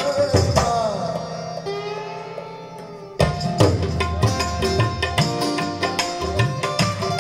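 Recorded music playing through a pair of floor-standing hi-fi speakers driven by a Luxman M-02 power amplifier and C-02 preamplifier: a plucked string instrument bending its notes over hand drums. The music thins to a fading held note, then drums and strings come back in suddenly about three seconds in.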